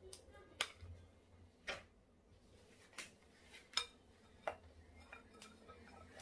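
A spatula tapping and scraping against a bowl as thick palm nut cream is scraped out into a stainless steel pot, about six light taps roughly a second apart.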